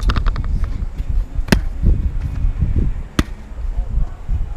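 A quick run of clicks, then two sharp smacks about a second and a half apart, over a steady low rumble.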